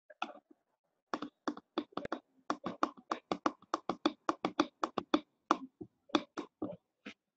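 A person clapping, about four or five claps a second for several seconds, starting about a second in with a brief pause shortly before the end. It is heard over video-call audio that cuts to silence between claps.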